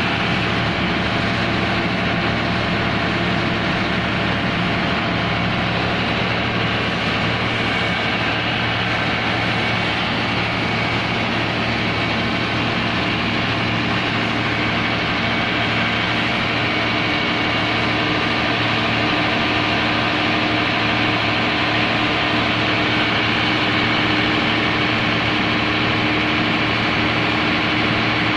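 Komatsu SA6D110 six-cylinder diesel engine of an open-frame 130 kVA generator set running steadily on test, an even, unchanging engine note.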